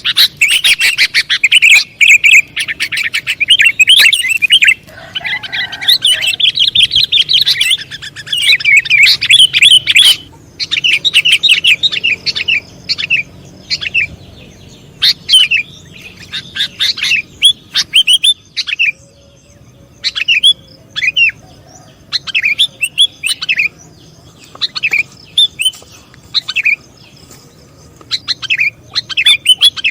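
Sooty-headed bulbul (kutilang) calling: a dense run of quick, bright chirps for the first ten seconds, then separate short chirps about once a second.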